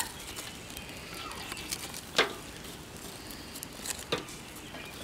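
Onions sizzling faintly on hot charcoal briquettes, with two sharp knocks, about two and four seconds in, as they are turned with knife blades.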